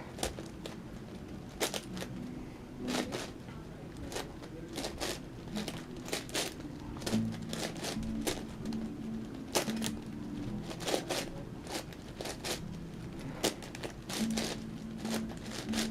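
Plastic layers of an 11x11x11 Rubik's cube clicking and clacking as they are turned by hand, in irregular clicks one to three a second.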